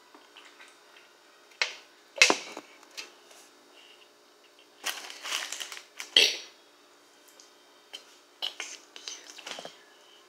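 Paper bag and food wrapper crinkling and rustling in short, sharp bursts, loudest about two and six seconds in.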